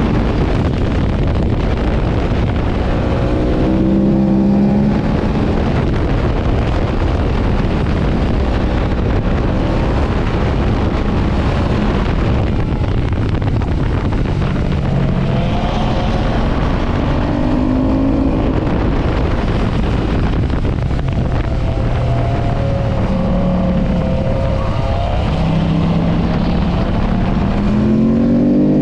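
Ducati S4RS's L-twin engine under hard acceleration, its pitch climbing and falling back several times as it is revved through the gears.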